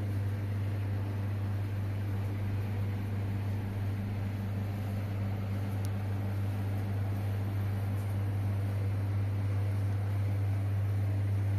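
Steady low electrical hum, like a refrigeration compressor or mains hum, unchanging throughout, over a faint background hiss.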